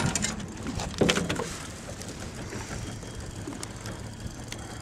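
Spinning reel's drag clicking as a hooked northern pike pulls line, over a steady rush of wind and water, with a short loud burst about a second in.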